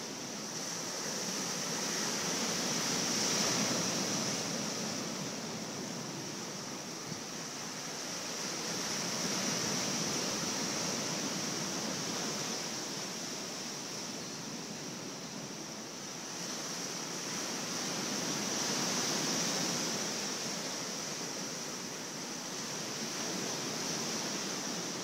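Sea surf washing onto the shore, a steady rush that swells and eases in a few slow surges.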